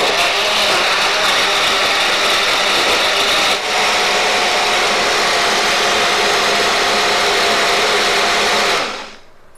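Agaro personal blender's motor running steadily at full speed, pureeing tomatoes with a ground spice masala and a little water in its cup. The sound dips briefly about three and a half seconds in, then cuts off near the end.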